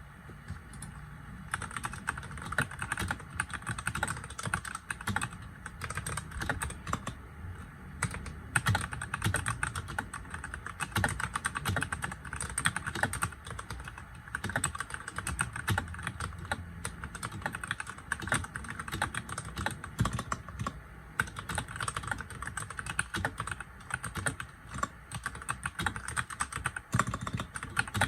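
Typing on a Royal Kludge RK100 mechanical keyboard with red linear switches: a continuous run of rapid keystroke clacks.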